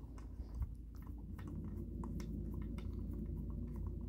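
Light clicks and taps from a Springfield-Stevens Model 15 .22 rifle's action and wooden stock being handled as the action is pressed back into the stock, with a soft knock about half a second in, over a low steady hum.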